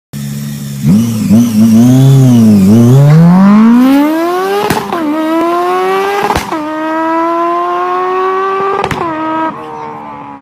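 Car engine blipped up and down a few times, then accelerating hard with its pitch climbing steadily through three gear changes, each marked by a click and a short dip in pitch.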